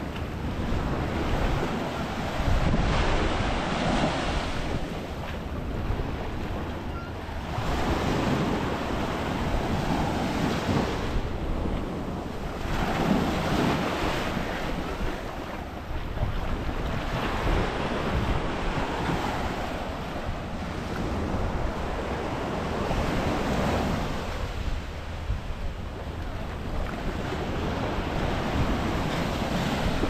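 Arabian Sea surf breaking on a beach, a rushing that swells and falls every four to five seconds, with wind buffeting the microphone.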